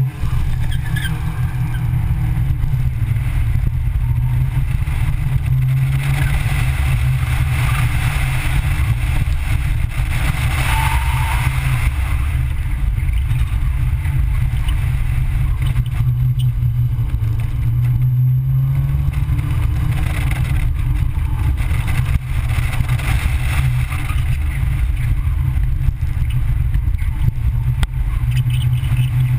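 A small car's engine pulling hard under full throttle through an autocross run, heard from inside the cabin. It jumps up at the launch, then its pitch rises and falls with the throttle and gear changes.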